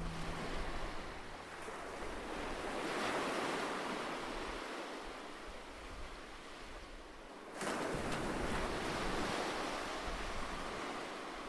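Sea surf: waves washing in as a swelling and fading hiss, with a second wave breaking suddenly a little past halfway.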